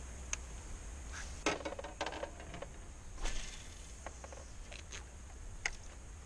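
Scattered sharp clicks and knocks from handling fishing gear, the loudest about a second and a half in, over a steady faint high hiss.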